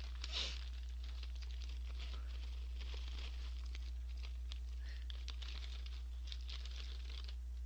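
Plastic snack bag of Orion Gorae-bap crackers crinkling and rustling as it is handled and crackers are shaken out into a hand: scattered small crackles throughout, over a steady low hum.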